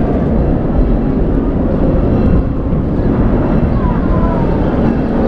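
Narrow-gauge passenger train running steadily along the track, heard from aboard: a continuous loud rumble of the wheels and cars.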